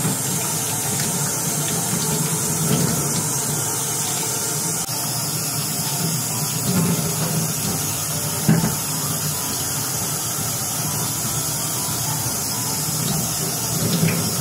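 Kitchen tap running steadily into a sink, water splashing over a potato as it is washed and peeled. A short knock about eight and a half seconds in.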